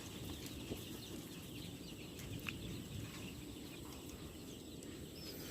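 Faint, scattered peeping of young layer chicks in a brooder, over a low steady background noise.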